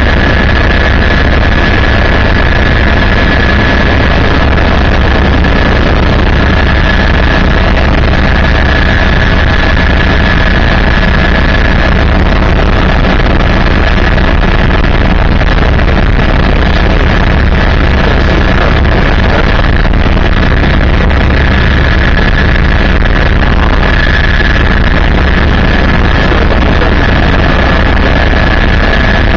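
Helicopter in flight, heard from inside the cabin: a loud, steady drone of rotor and engine with a constant high whine over it.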